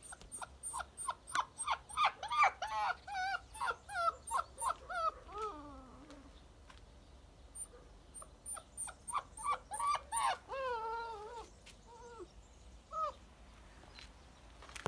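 Puppy whining and yelping in quick runs of short high-pitched cries, about three a second, with a pause between two runs. One longer whine slides down low, and a few drawn-out whines and two single cries come near the end.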